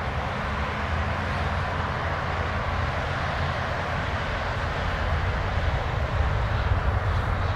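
Jet noise from an Embraer E175's twin GE CF34 turbofans as it departs: a steady deep rumble with a hiss above it, growing slightly louder over the last few seconds.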